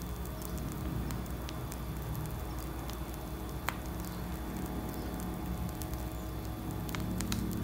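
Quiet handling sounds of whipped cream being piped from a pastry bag: a few soft clicks over a steady low hum.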